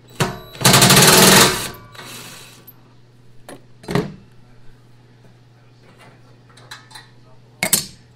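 Cordless 20-volt DeWalt driver running for about a second, with a fast rattle as it backs a bolt out of a chipper shredder chute, then a shorter, quieter run. Two knocks follow as the tool is set down on the table, and near the end a sharp clink as a part is dropped into a metal parts tray.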